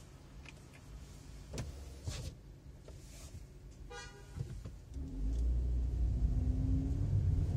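Car engine idling quietly with a few light clicks, heard from inside the car. A short beep sounds about four seconds in. About five seconds in the engine gets much louder as the car pulls away from a stop and accelerates.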